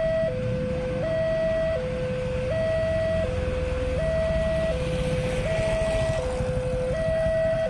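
Railway level-crossing warning alarm sounding, a steady two-tone signal alternating high and low, each tone lasting about three-quarters of a second. A low rumble of idling motorcycle engines runs beneath it.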